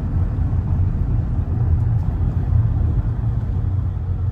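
Steady low rumble of a London black taxi moving slowly, heard from inside the cab: road and running noise with no engine note standing out.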